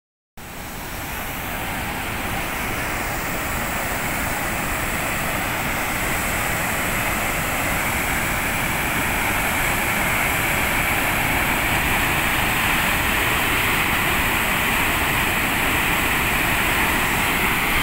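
Muddy floodwater rushing over a rocky ledge and falls: a dense, steady rushing noise that grows louder over the first few seconds, then holds.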